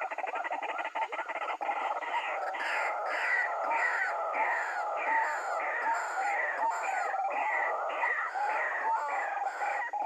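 White-breasted waterhen calling: a fast chatter that settles, about two seconds in, into a steady series of harsh 'ruak' notes, about two a second.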